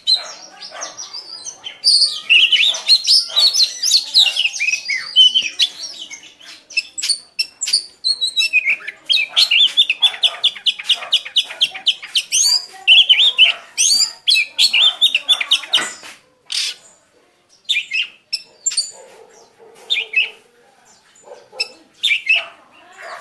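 White-eye singing its rapid, high-pitched twittering warble (the 'líu' song), with a fast run of quickly repeated notes in the middle that thins to scattered chirps near the end.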